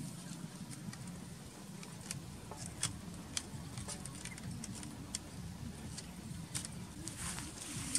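Irregular clicks and soft crackles of a whole raw duck being handled and forced onto a wooden roasting stick, over a steady low hum.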